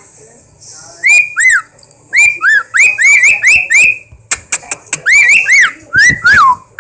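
A pet bird whistling a quick series of short notes, each sweeping up and then down, in repeated runs. A few sharp clicks come about four and a half seconds in.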